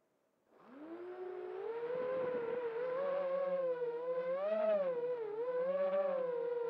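FPV quadcopter's motors and propellers spinning up about half a second in, the pitch rising, then a steady whine that wavers up and down with the throttle as the drone lifts off the grass.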